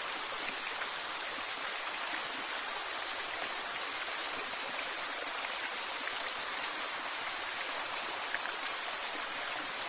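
A small waterfall splashing steadily: an even rush of falling water.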